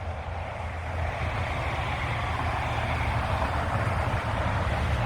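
A large engine running steadily, a low hum under a wider rushing noise, slowly growing louder.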